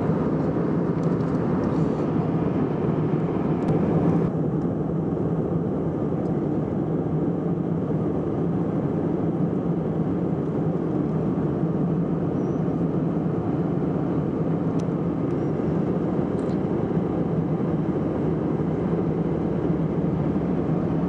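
Airbus A319 cabin noise in cruise: a steady, low drone from the engines and the airflow, heard from inside at a window seat. A higher hiss in the mix drops away about four seconds in.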